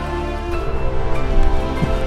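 Background music: held chords over a steady bass line, no vocals in this stretch.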